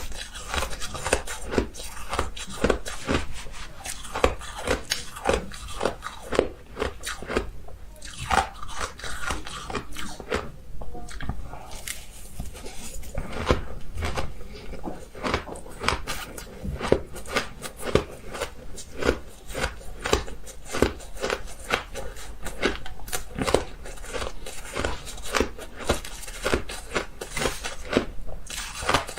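Ice being bitten and chewed close to the microphone: a steady run of sharp, brittle crunches, about two to three a second.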